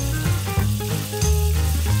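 Minced garlic sizzling steadily in hot olive oil in a nonstick frying pan, under background music.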